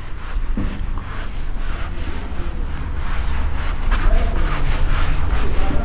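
Felt whiteboard eraser rubbed back and forth across a whiteboard, wiping off marker writing in quick, repeated strokes, a few a second.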